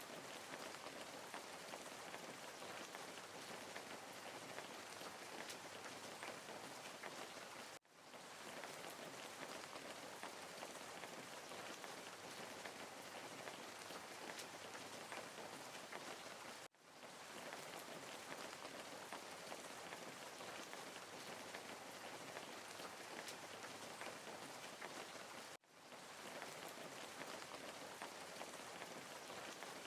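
Faint, steady rain-like hiss. It cuts out sharply and fades back in three times, about every nine seconds.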